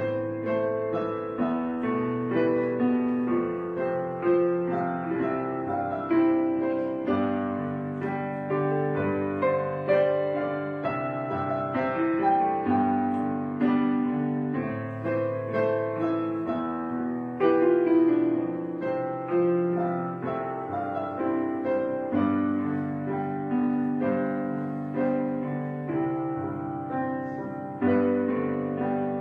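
Background piano music: a gentle, slow melody of soft notes over chords, each note struck and left to fade.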